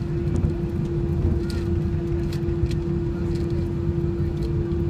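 Airliner cabin noise inside an Air India Boeing: the steady low rumble of engines and airflow, with one steady hum on top and a few faint clicks.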